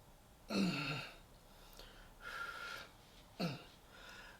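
A man's voice in a pause: two short hesitant murmurs that fall in pitch, with an audible breath between them.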